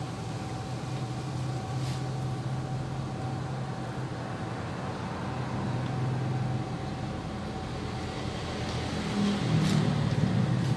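Steady low mechanical hum with a faint steady whine above it, and a few light clicks near the end.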